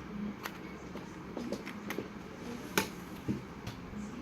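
A few light, sharp clicks and taps, the loudest a little under three seconds in, as a laptop DDR3 memory module is handled and angled into its slot in a MacBook Pro.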